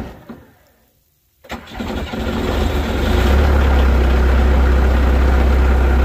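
Diesel skid steer loader engine being cranked: the sound of the first attempt dies away, then about a second and a half in the starter cranks again and the engine catches about three seconds in, settling into a steady run.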